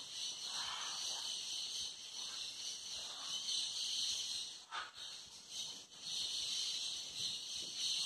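Steady high-pitched chorus of rainforest insects, a dense unbroken hiss, briefly dipping twice around the middle.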